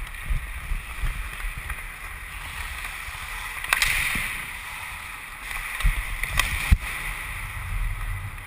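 Ice hockey play heard from a helmet-mounted camera: skate blades scraping and carving on the ice over a low rumble on the microphone, with a few sharp clacks of sticks and puck. The loudest scrape comes about four seconds in, and two clacks come close together near the seven-second mark.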